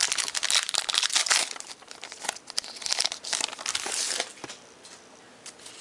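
Crinkling and tearing of a trading-card pack wrapper as it is opened, a dense crackle that lasts about four seconds and then dies down.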